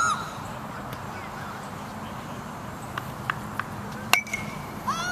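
A baseball bat hits a pitched ball once, about four seconds in, with a sharp crack and a brief ringing ping.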